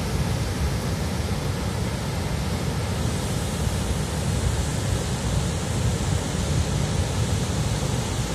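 Flash-flood torrent rushing and churning past, a steady, loud, unbroken noise of fast muddy water.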